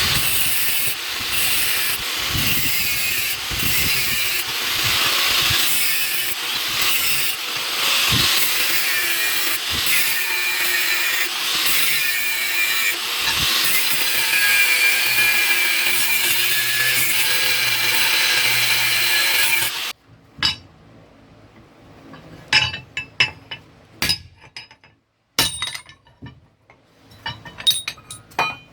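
A steel cleaver blade made from leaf-spring steel is being worked with an abrasive tool, giving a continuous gritty scraping. The scraping stops abruptly about two-thirds of the way through, and a few scattered light metallic clinks and taps follow.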